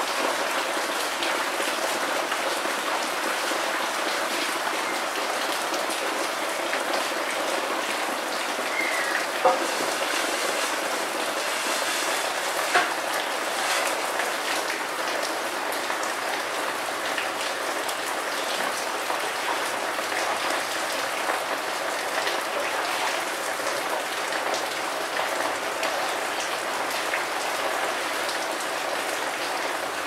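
Steady rain falling: a dense, even hiss of many drops at a constant level. Two short, sharp, louder taps sound about a third of the way in.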